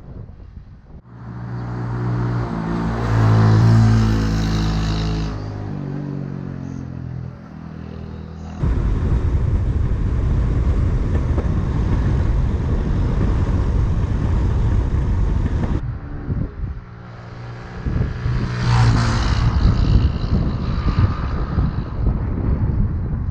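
Honda Super Cub's small four-stroke single-cylinder engine running while riding, its pitch rising and falling with the throttle, alternating with stretches of heavy wind rumble on the microphone. The sound changes abruptly twice, at clip cuts.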